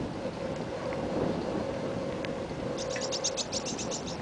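Wind buffeting the microphone during a bicycle ride on a paved path, a steady low rumble with a faint hum underneath. About three seconds in comes a quick run of about a dozen high ticks, over in just over a second.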